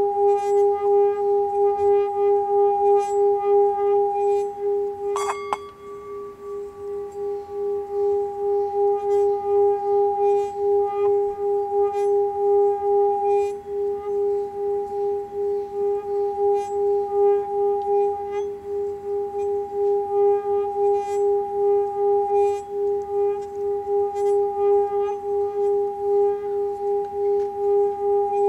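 A 7-chakra metal singing bowl is sung by rubbing a mallet around its rim, giving a steady, pulsing hum with a second tone an octave above. About five seconds in, the mallet clacks once against the rim; the tone drops and then builds back up.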